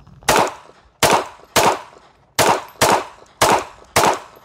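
Seven shots of 380 ACP fired from a Smith & Wesson Bodyguard 2.0 pocket pistol at an uneven pace of roughly two a second, each sharp report trailing off in a short ring.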